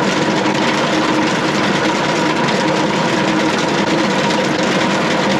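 Tractor engine running steadily under load, driving a PTO-powered pump that churns and stirs sludge in a septic tank.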